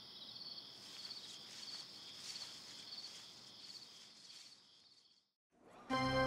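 Crickets chirping, a high trill repeated every half second or so, fading out about five seconds in. Music starts just before the end.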